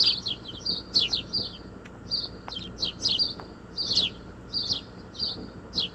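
Small birds chirping: quick clusters of short, high chirps that slide downward, a few each second, cutting off suddenly at the end.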